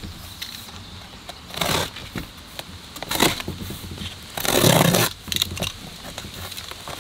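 Box cutter slicing through the packing tape on a cardboard box: three cuts, the longest and loudest about four and a half seconds in.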